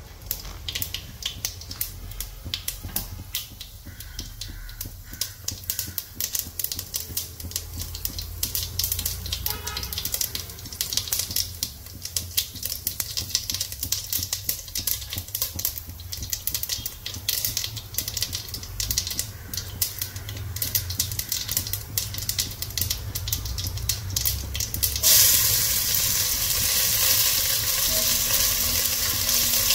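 Black mustard seeds spluttering in hot oil with dried red chillies in an enamelled cast-iron pot: a steady stream of sharp pops and crackles. About 25 seconds in, chopped onion goes into the oil and a louder, steady sizzle takes over as it is stirred.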